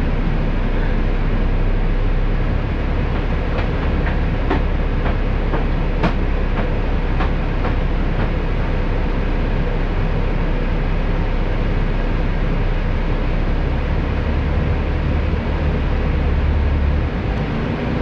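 Steady low rumble of a vehicle heard from inside as it moves slowly, with a few small clicks and rattles now and then.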